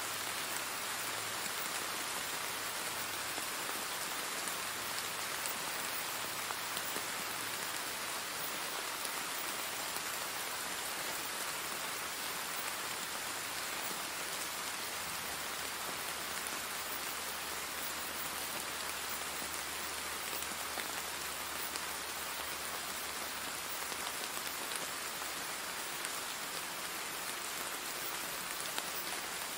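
Steady rain, an even hiss with no breaks, used as a masking track. A faint low hum comes and goes underneath.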